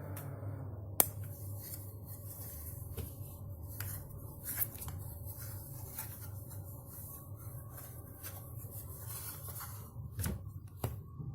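A small plastic clip-on fan being handled: scattered clicks and rubbing, with one sharp click about a second in, over a low steady hum.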